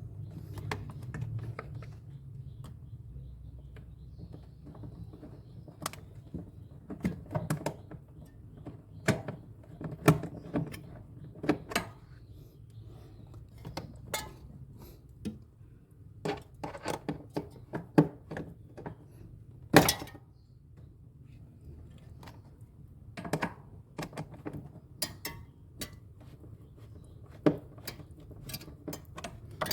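Irregular clicks, taps and knocks of hand tools and metal parts being handled during work on a refrigerator's defrost heater, with a low steady hum underneath.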